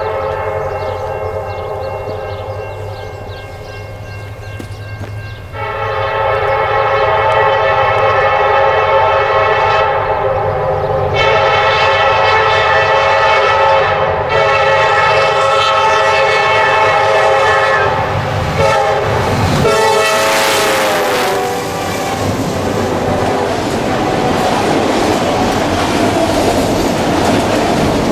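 Freight train's locomotive air horn sounding long chord blasts as it approaches, growing loud about five seconds in. The horn drops in pitch as the locomotives pass, then comes the steady rumble and wheel clatter of autorack cars rolling by.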